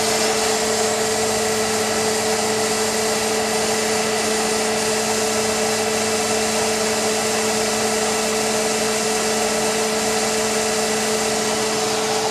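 Mercedes-Benz M271 four-cylinder engine running at idle with its accessory belt drive turning, a steady hum carrying a constant tone. The alternator's seized decoupler pulley has just been replaced with a new freewheeling one, and the drive is a lot quieter now.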